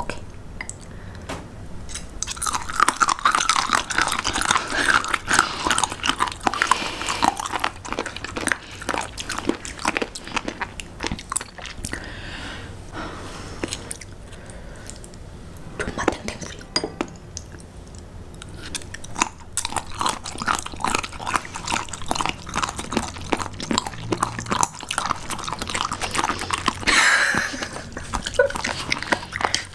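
Close-miked crunching and wet chewing of raw seafood sashimi, raw gizzard shad and raw abalone, with many sharp, irregular crunches.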